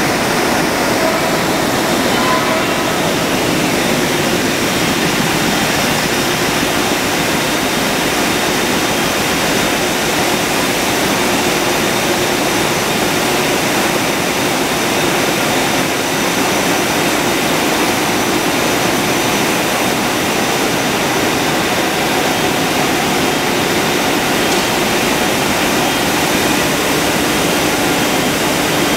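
Double-twist bunching machine running at speed: a loud, steady rushing whir with a few faint steady tones above it.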